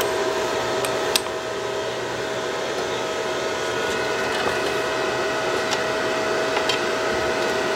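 Wire-feed motor of a Powerhouse 3-in-1 MIG welder running steadily with a constant whine, driving flux-core wire through the feed rolls. It stops abruptly near the end.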